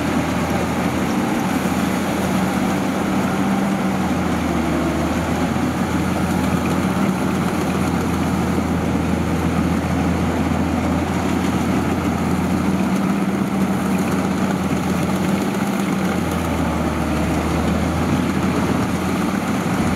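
Diesel engine and threshing gear of a 105X rice combine harvester running steadily as it crawls through a muddy paddy, a continuous low drone that swells and eases a few times.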